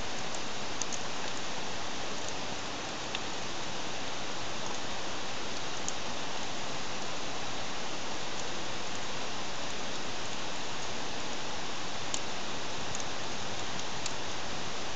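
Wood campfire crackling, the firewood thought to be Japanese cedar: a steady hiss with a few sharp pops scattered through it.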